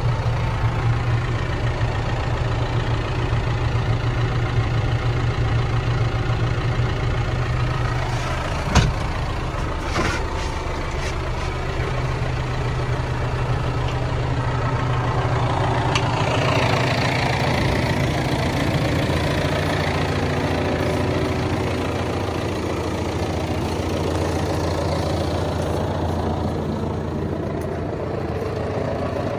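John Deere 6125R tractor's six-cylinder diesel engine idling steadily. Two sharp knocks come about nine and ten seconds in, and a hiss joins the engine from about sixteen seconds on.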